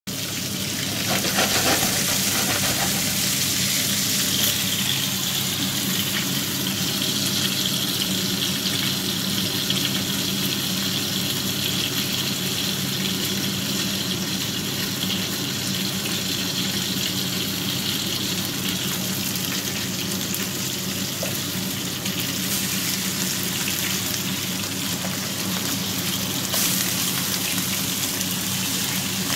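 Whitebait-and-egg fritters frying in oil in a non-stick pan, giving a steady, even sizzle.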